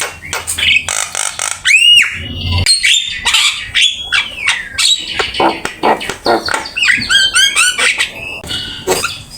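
Javan myna singing a busy, varied song full of mimicked phrases: harsh chatter and clicks mixed with whistled glides, with loud arching whistles about two seconds in and a quick run of repeated looping notes near the eighth second.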